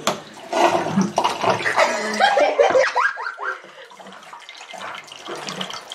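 Water running from a bottled-water dispenser's tap into a glass. Over the first three seconds or so people laugh loudly over it, then the water runs on more quietly.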